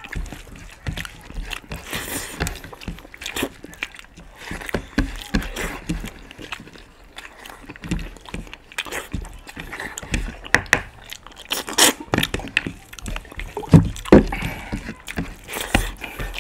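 Two people eating rice and curry with their hands: irregular chewing and mouth noises and the wet squish of rice being mixed on the plates, with sharp clicks here and there.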